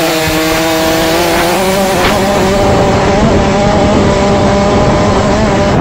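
Husqvarna TC 50 two-stroke 50cc motocross bike accelerating hard off the start, its engine held at high revs with the pitch creeping up, with wind rushing past the onboard microphone.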